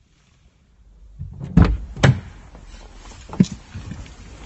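Knocks and thumps inside a car cabin from someone moving in the driver's seat and handling the car door. There are two sharp knocks about a second and a half in, half a second apart, and a lighter knock a little over a second later, over a low rumble.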